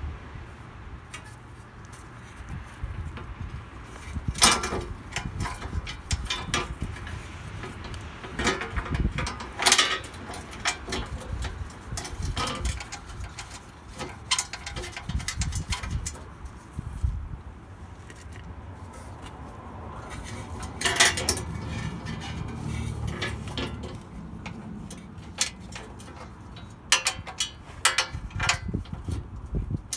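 Hand tools and metal parts clinking and knocking now and then, with a few louder knocks, over a low steady rumble.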